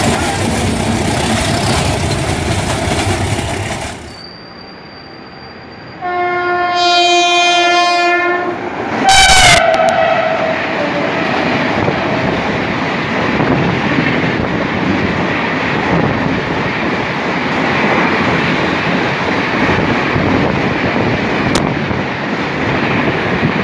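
A passing train's steady rail noise, then after a short lull an electric locomotive's horn sounds one blast of about two seconds. The locomotive rushes past with a sudden loud burst about nine seconds in, followed by a tone that falls in pitch. Its coaches then run by with a steady rumble and clatter of wheels on rail.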